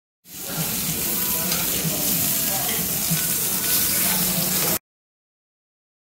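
Pieces of smoked pork sizzling on a perforated barbecue grill plate, a steady hiss that starts just after the beginning and cuts off suddenly near the end.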